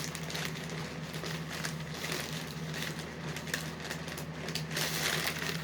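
Dry crunchy cereal being chewed, a dense irregular crackling crunch that grows louder near the end, over a faint steady low hum.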